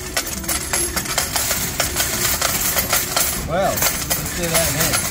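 Dollar coins clattering one after another into the metal payout tray of a Magnificent 777 reel slot machine as it pays out: a fast, ragged run of metallic clinks.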